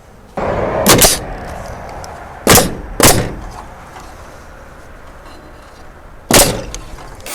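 Battens being nailed onto barn siding: four sharp nailing strikes, one about a second in, two close together around two and a half and three seconds, and one near the end, over a rustling handling noise that starts just before the first.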